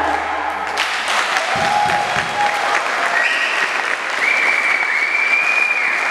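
Capoeira circle's percussion stops about a second in, then a group of people claps and applauds, with a few long high calls held over the clapping.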